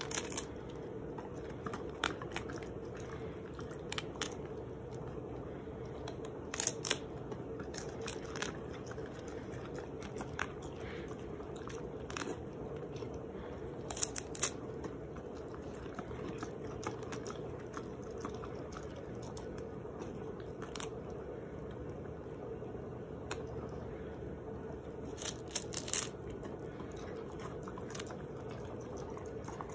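Crisp crunches of a romaine lettuce leaf being bitten by a cat and a husky-type dog, coming at irregular moments a few seconds apart, over a faint steady hum.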